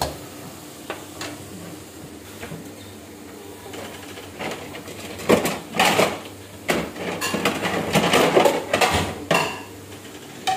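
Metal kitchen utensils clinking, knocking and scraping against a steel pan and bowl. There are a few light clicks at first, then a dense run of loud clatter from about five to nine and a half seconds in. Under it is a faint steady hiss of potato fries deep-frying in oil.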